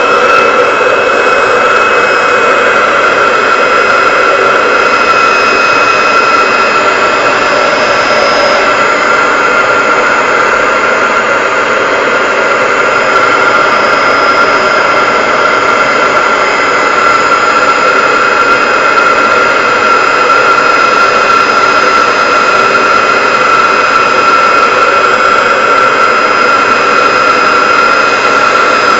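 Old hand-held hair dryer running steadily, a loud rush of air with a steady high whine from its fan motor.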